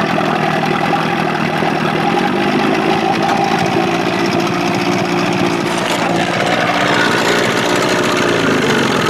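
Evinrude two-stroke outboard, a 25 hp converted to 30–35 hp with a bigger carburetor, running steadily with a throaty exhaust note.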